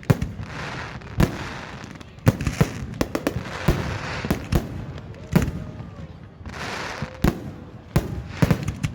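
Aerial fireworks bursting: an irregular series of sharp bangs, roughly one every half second to second, with a noisy hiss between them.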